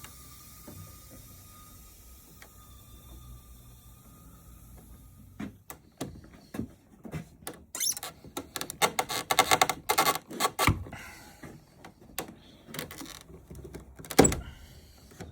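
Compressed air hissing out of the pressurised plumbing with a faint whistle, cutting off about five seconds in. Then a run of clicks, rattles and knocks from handling pipe fittings and tools, with two sharp knocks later on.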